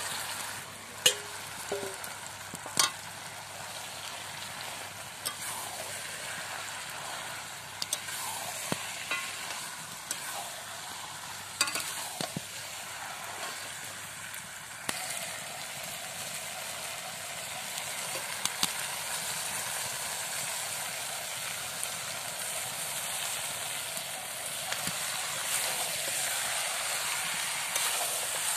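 Chicken pieces sizzling in hot oil and masala in a kadai, with a metal spatula stirring and knocking against the pan now and then. The sizzle gets a little louder about halfway through.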